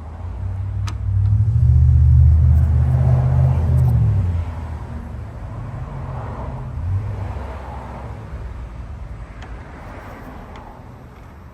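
Low engine rumble of a passing motor vehicle, swelling over the first couple of seconds, loudest for a few seconds, then slowly fading away.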